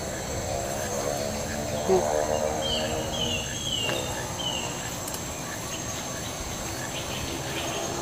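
Steady, high-pitched buzzing of insects in the brush, with a bird giving four quick chirps about three seconds in. A lower pitched hum comes and goes during the first half.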